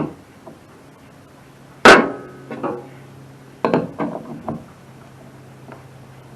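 A few sharp metallic clanks with brief ringing as tools or metal parts are knocked and set down on a workbench; the loudest comes about two seconds in, followed by a quick cluster about a second and a half later. A faint steady low hum runs underneath.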